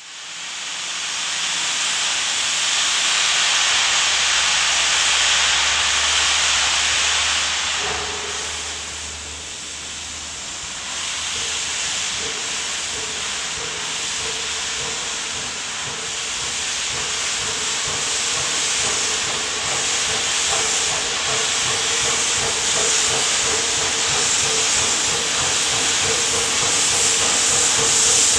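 Replica 1850s–1870s American-type 4-4-0 steam locomotive venting steam, with steam blowing from around its cylinders as it approaches: a loud, steady hiss that fades in at the start and dips briefly about eight seconds in. A faint steady tone runs under the hiss from then on.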